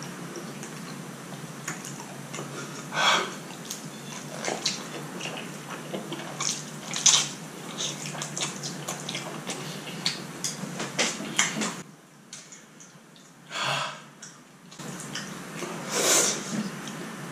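A person slurping and chewing instant noodles eaten with chopsticks: irregular wet slurps and mouth smacks, a few louder slurps standing out, over a steady hiss.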